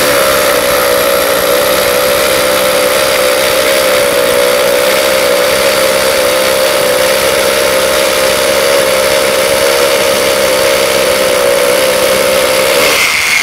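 Metabo KHA 18 LTX BL 24 cordless SDS-plus rotary hammer drilling a 10 mm hole into a very hard concrete curbstone, with hammer action and rotation both engaged. It runs steadily under load at an even pitch and stops near the end.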